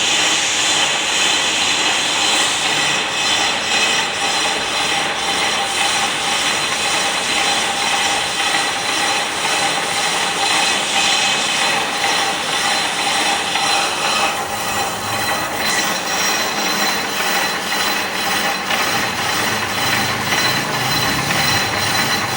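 Manual lathe resurfacing a brake disc rotor: a steady scraping cut with thin, high, steady whining tones over it.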